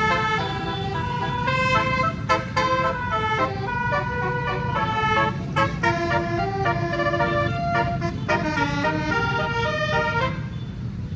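A bus's multi-trumpet 'basuri' melodic air horn with 18 notes plays a fast tune, one held note after another, over a low engine and road rumble. The tune stops about ten seconds in.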